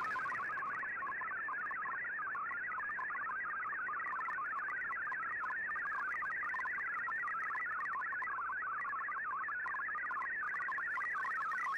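Shortwave MFSK digital-mode data signal from an Icom IC-R8600 receiver: a steady warble of rapidly hopping tones that carries text being decoded as it is received.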